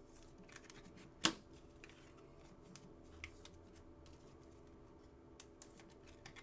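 Trading cards being handled and set down: faint soft slides and small taps, with one sharp click about a second in.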